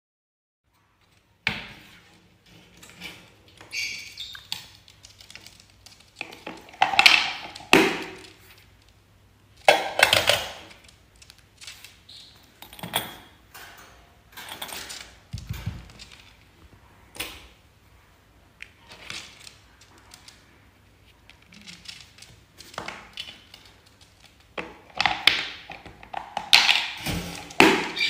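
Irregular taps, knocks and clinks as a yellow-collared lovebird handles small toys on a hard tabletop, with a few metallic rings from a chrome desk bell. The sounds come in clusters, the loudest about seven and ten seconds in and near the end.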